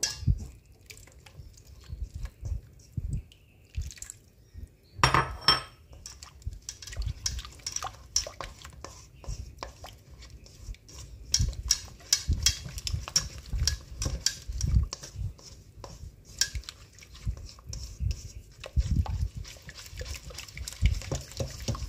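A spatula stirring and scraping a thick flour batter in a stainless steel bowl, with repeated clicks and scrapes against the metal as coconut milk is worked into the flour. A louder clink about five seconds in.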